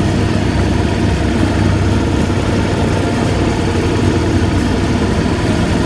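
Motorcycle engine running steadily, a constant low hum with no rise or fall in revs.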